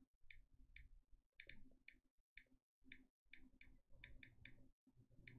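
Faint, irregular clicking of keys being typed on a computer keyboard, over a low background hum.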